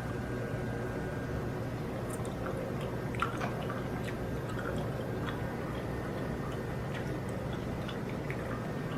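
Faint chewing and small mouth clicks from a person eating a bite of pan-cooked chicken of the woods mushroom, over a steady background hum.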